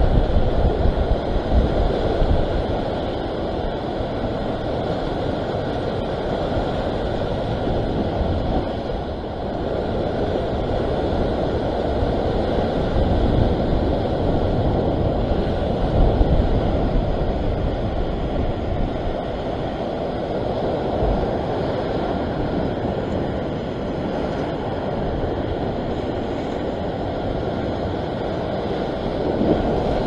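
Steady wind rumbling on the microphone over the wash of choppy open sea.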